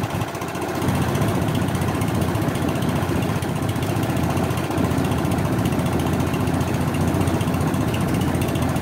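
Freshly rebuilt Kohler K301 12 hp single-cylinder cast-iron engine running steadily, with a rapid, even firing beat.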